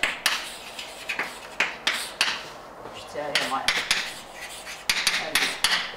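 Chalk writing on a blackboard: a dozen or so sharp taps and short scratchy strokes in an uneven run as letters are written.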